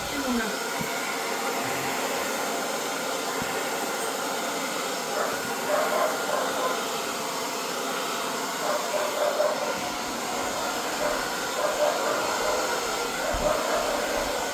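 Hair dryer blowing steadily, its air stream pushing wet poured acrylic paint across a canvas.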